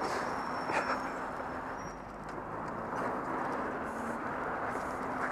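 Road traffic noise on a wet road: a single-decker bus approaching, its engine a low steady drone under a constant rush of road noise.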